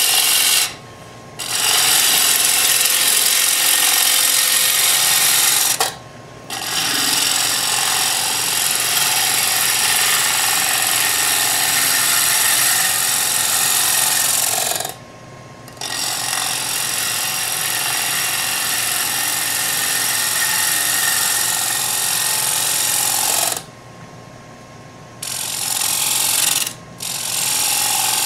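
Turning tool cutting a spinning wooden bowl on a lathe: a loud, steady hiss of shavings peeling off the wood. It breaks off in several brief pauses, where the tool lifts from the cut and only the lathe's faint hum remains.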